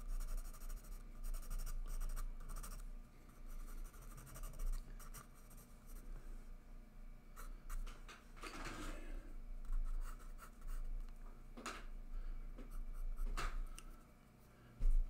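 Graphite pencil scratching over sketchbook paper in short shading strokes, with a longer rubbing stroke about eight seconds in and a couple of light clicks near the end, over a steady low hum.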